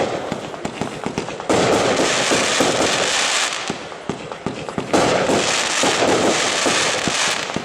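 Firework cake firing 25 mm shots, with a dense crackle of many sharp pops. It comes in waves, swelling about a second and a half in and again about five seconds in, then thinning out near the end.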